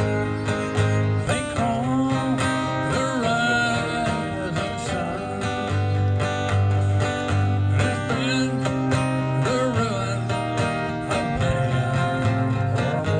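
A man singing a country-style song into a microphone while playing guitar, with a steady bass line underneath.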